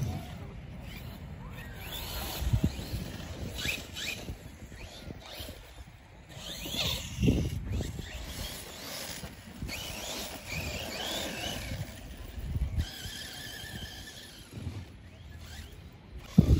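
Electric motor of a remote-control car whining, its pitch rising and falling as the car speeds up and slows, then holding steady near the end, over wind rumbling on the microphone and a few dull bumps.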